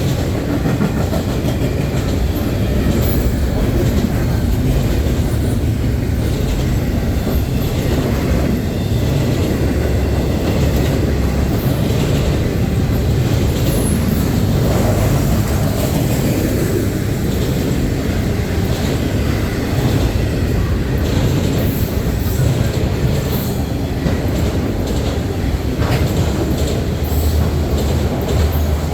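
CN freight train rolling past, a steady heavy rumble of cars with wheels clacking over the rails and brief high wheel squeals now and then.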